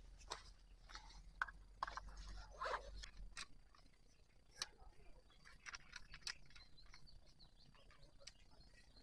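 Faint outdoor ambience of scattered short bird chirps and clicks over a low rumble, thinning out after the first few seconds, with a faint thin high steady tone from about the middle on.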